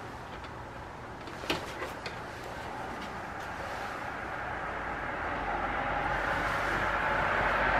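A few short clicks about a second and a half in as the electrolysis leads are handled, over a steady rushing background noise that slowly grows louder.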